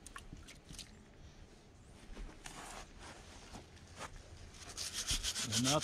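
Stiff-bristled scrub brush scrubbing a horse's wet hoof. A few faint taps and rustles at first, then quick back-and-forth strokes start near the end and get louder.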